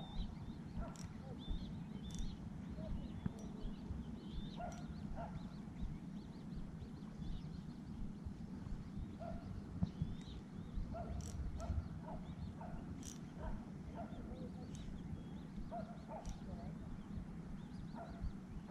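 Short, scattered animal calls over a steady low rumble of outdoor background noise, with a few sharp clicks.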